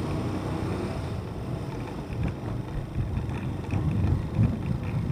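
Motorcycle riding off, with wind rushing and buffeting over the microphone and a low engine and road rumble that gets louder and gustier about three and a half seconds in as speed builds.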